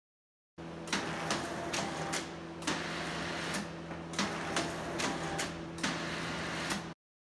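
Computer-controlled pin array with individually powered metal pins running a cascade: a steady machine hum with about a dozen sharp clicks at uneven intervals as the pins move. It starts about half a second in and cuts off abruptly near the end.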